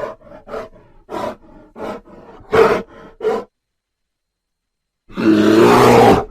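Grizzly bear vocalising: a quick run of short growls over the first few seconds. After a pause of about a second and a half comes one loud roar lasting just over a second.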